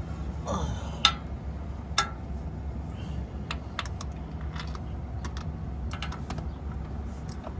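Scattered sharp metallic clicks of a socket ratchet working a starter mounting bolt loose, a few single clicks and short runs of clicks, over a steady low hum.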